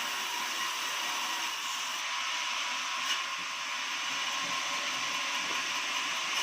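Horizontal band sawmill running: a steady hiss with a faint high whine, and a short tick about three seconds in.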